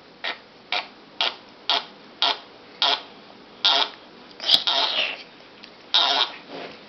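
A run of fart noises: short sharp blasts about two a second, then three longer, drawn-out ones in the second half.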